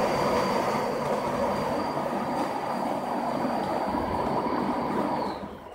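Four cold spark machines jetting at once: a steady rushing hiss with a thin high whine on top. Near the end the whine drops in pitch and the sound falls away.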